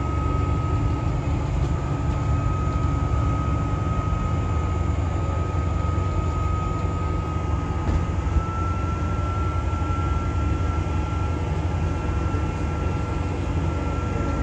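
Double-decker bus driving along, heard from inside on the upper deck: a steady low engine and road rumble with a thin high whine that steps slightly higher about halfway through.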